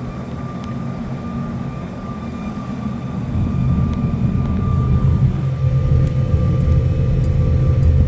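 2002 Ford F-250 driving at speed: a steady high whine over the low rumble of the road and drivetrain, which the owner thinks comes from the differential. The whine fades out near the end.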